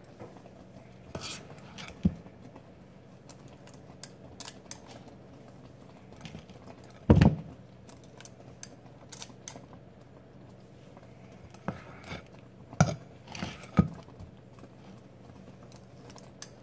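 Metal squeeze-handled kitchen scoop working through a bowl of shortcake dough and dropping balls of it into a pot: scattered light clicks and clinks of the scoop against the bowl and pot. There is a loud knock about halfway through and two sharper knocks a little later.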